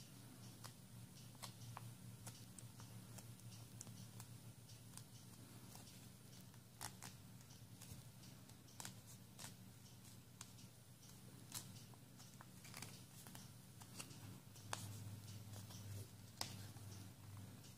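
Faint crinkles and crisp clicks of origami paper being folded and creased by hand, scattered irregularly, over a low steady hum.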